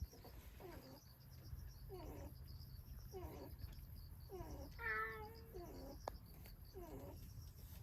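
A cat meowing repeatedly, about five meows each falling in pitch, the loudest about five seconds in.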